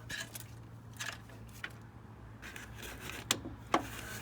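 Scattered metallic clicks and scrapes as the crankshaft of a Honda B18C1 engine is turned over during teardown, with two sharp clicks near the end. A steady low hum runs underneath.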